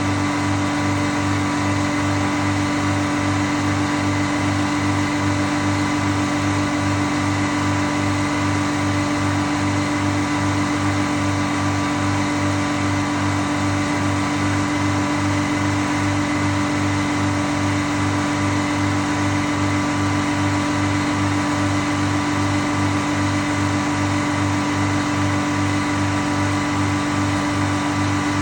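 Frick circular sawmill and its drive running steadily, a constant mechanical drone with a regular low pulse about twice a second.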